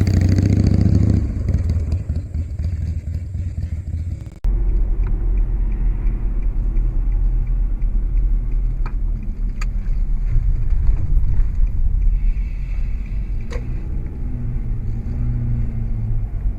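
Steady low rumble like a road vehicle driving, with an abrupt change about four and a half seconds in and a few faint clicks.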